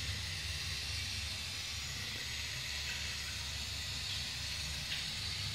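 Steady background hiss with a low hum underneath, unchanging and without distinct events.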